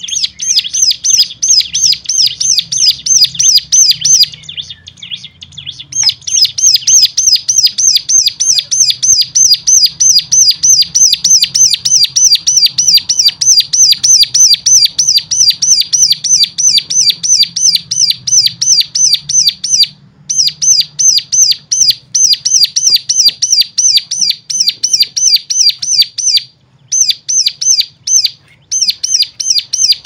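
A cigun, a small brown cage songbird, sings a long run of rapid, identical chirps, about three or four a second, breaking off briefly a few times. It is a stimulus song (suara rangsangan) of the kind used to spur other cigun into full song.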